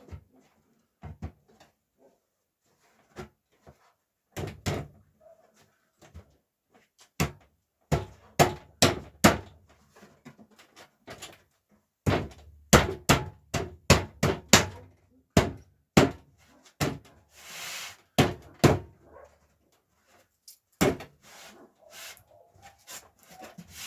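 Fir-board planter's top rim being knocked into place by hand: a long run of irregular sharp knocks on wood, some in quick clusters, with a brief rasp in the second half.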